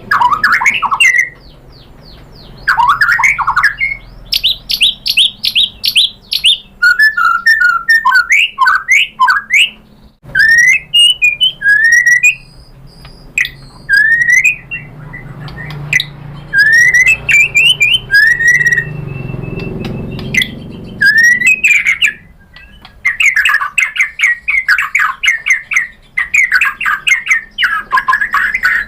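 White-rumped shama singing a loud, varied song of rising whistles, fast chattering trills and rapid repeated notes, in bursts with short pauses between phrases.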